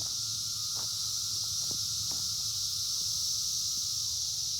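Steady high-pitched chorus of insects buzzing without a break, with a few faint ticks over it.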